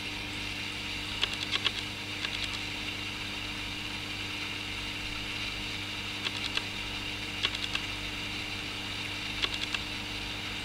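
Steady hum and hiss of aquarium equipment running, with short runs of three or four quick clicks several times, about a second or two apart.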